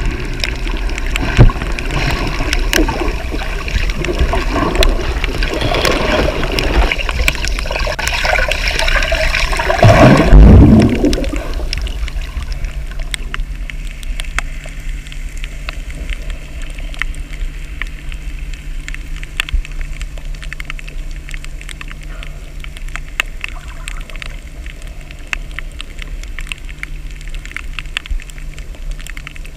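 Water recorded underwater: dense bubbling and gurgling that swells to a loud low rush about ten seconds in, then settles to a quieter steady low hum with scattered sharp clicks.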